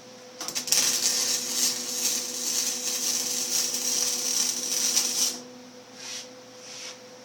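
Electric welding arc crackling and sizzling: it sputters a few times as the arc strikes, burns steadily for about five seconds, then cuts off, followed by a couple of brief sputters.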